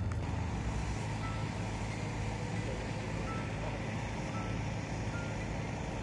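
Steady mechanical hum over a noisy background, with a few faint short high beeps scattered through it.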